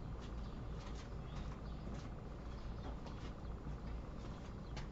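Faint scattered light clicks and ticks of small parts being handled, over a low steady hum.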